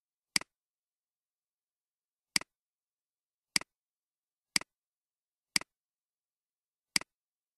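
Computer mouse button clicking: six single clicks spaced one to two seconds apart, each with a fainter second click just after it, as the button goes down and comes back up.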